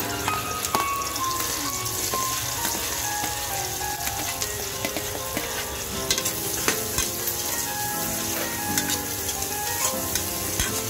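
Chopped onion and red bell pepper sizzling as they sauté in hot oil in a large metal pot. A metal spoon scrapes the pieces in and stirs them, knocking and clicking against the pot now and then.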